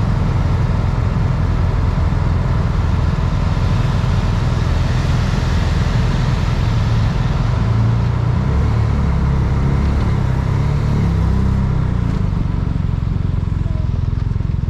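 An engine running steadily with a heavy low rumble.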